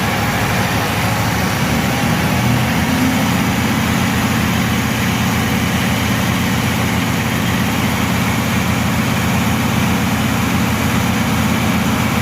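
Scania R560 XT truck's V8 diesel engine idling steadily.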